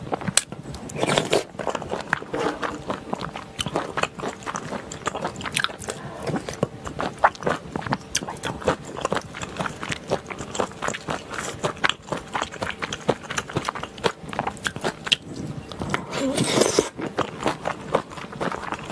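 Close-miked wet chewing and biting of spicy stir-fried pork gopchang (intestines) with chewy Chinese glass noodles and rice cakes: rapid squelching, smacking clicks. There are two longer, louder noisy stretches, one about a second in and one near the end.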